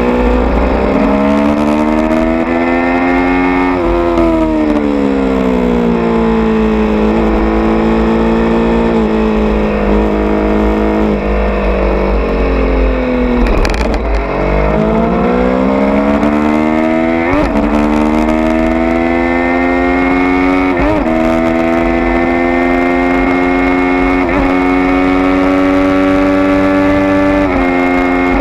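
Triumph Street Triple R 675's inline three-cylinder engine, breathing through an SP Engineering aftermarket exhaust packed with wadding, heard from onboard at track speed. The revs climb, fall away under braking and downshifts to their lowest about halfway through, then climb again through two quick upshifts and hold steady near the end. Wind buffets the camera microphone underneath.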